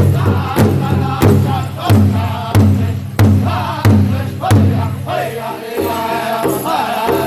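Powwow drum group singing in high, strained voices over a shared big drum struck in a steady heavy beat, about three strikes every two seconds. The strikes fall away in the last couple of seconds while the voices hold.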